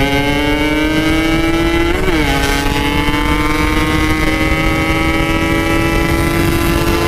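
Yamaha RX-King's single-cylinder two-stroke engine, fitted with an aftermarket expansion-chamber exhaust, accelerating hard under way. Its pitch climbs steadily through one gear, upshifts about two seconds in, then climbs again through the next gear.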